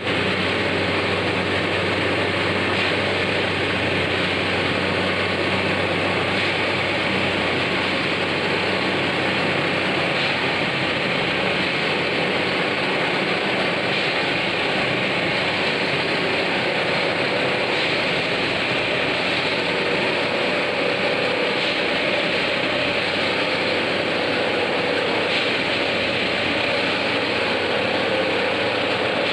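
Indian Railways CSM-904 track tamping machine running: a steady, unbroken engine and machinery drone.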